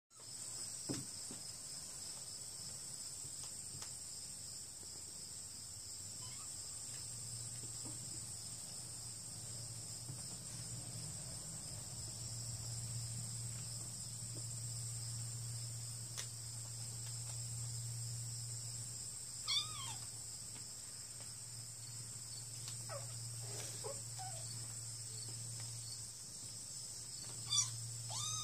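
Kittens mewing a few times: short, high, bending mews about two-thirds of the way in and again near the end, over a steady high-pitched chirring and a low hum.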